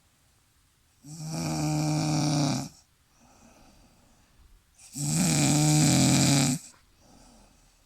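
A sleeping person snoring loudly: two long, rasping snores on the in-breath about four seconds apart, each lasting about a second and a half, with a faint out-breath between them.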